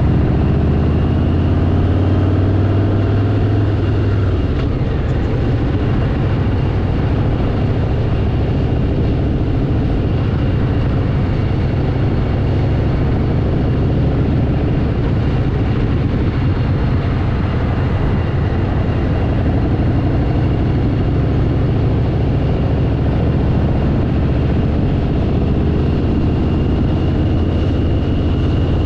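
Harley-Davidson V-twin motorcycle engine running steadily at road speed, with wind rush, as heard from on the moving bike. The engine note shifts about four seconds in, then holds steady.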